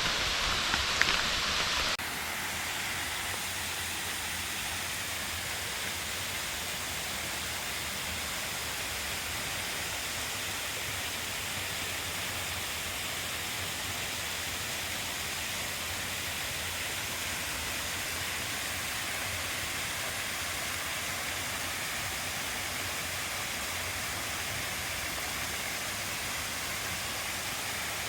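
Steady rush of falling water from a waterfall. The sound changes abruptly about two seconds in, then holds as an even hiss.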